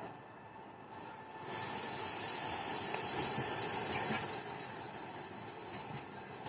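Loud high-pitched air hiss, lasting about three seconds, from a Russian passenger coach rolling slowly past, with a shorter, fainter hiss just before it. The coaches' wheels rumble steadily on the rails underneath.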